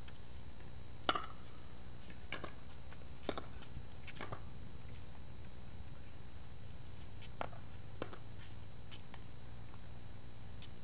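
Pickleball rally: a paddle hitting the hard plastic ball gives sharp pocks. There are four about a second apart, the first the loudest, then two more a little later.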